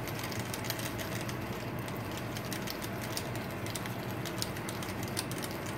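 Hand pepper mill twisted steadily, grinding black peppercorns with a continuous run of small gritty, ratcheting clicks.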